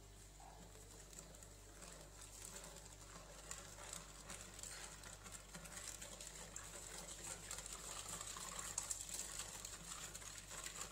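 Whisk beating a cold milk mixture in a stainless steel saucepan: a faint, quick patter of small ticks and swishes, a little louder after the first couple of seconds.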